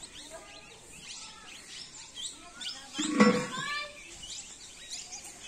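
Small birds chirping over and over, short high calls throughout. About three seconds in, a person's voice calls out briefly, the loudest sound.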